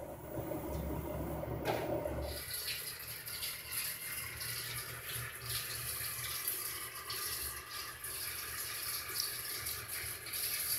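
Water running faintly, a steady uneven hiss, with a low hum that stops a couple of seconds in.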